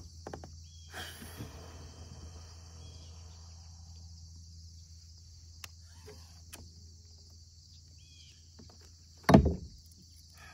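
Faint steady outdoor ambience: a high, even insect-like drone and a low hum, with a few small clicks and one brief thump about nine seconds in.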